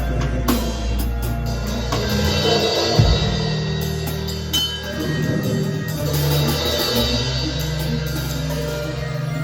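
Live band music: a drum kit beat with bass drum over held bass notes and sustained chord tones.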